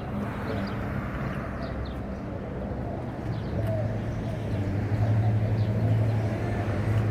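Low engine hum of passing street traffic, growing louder about halfway through as a vehicle comes closer, with faint bird chirps over it.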